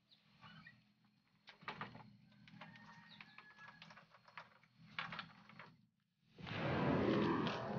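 Faint, irregular clicks and knocks of an old wooden plank door being handled and rattled. Near the end comes a louder, rushing noise.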